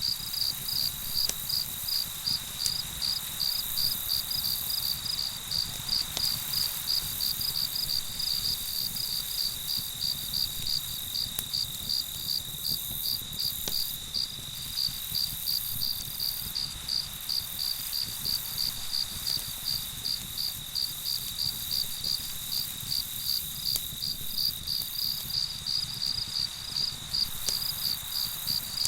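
Crickets chirping in a rapid, even rhythm over a continuous high trill, with a low rumble and a few faint clicks underneath.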